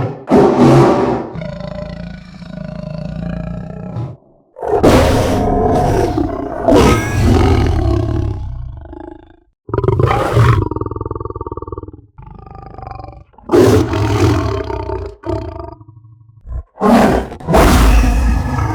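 Lion-style roar sound effect for the man-lion Narasimha, a series of about five loud roars with short pauses between them. Each roar has a pitched growling tone over a strong low rumble.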